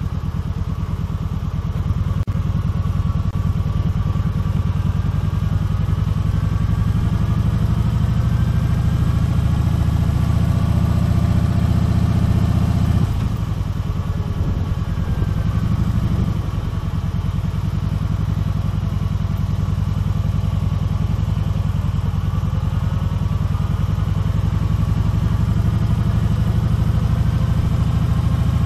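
Kawasaki Vulcan 1700 Voyager's V-twin engine running as the motorcycle rides slowly. About halfway through, the engine note drops and wavers for a few seconds, then steadies again.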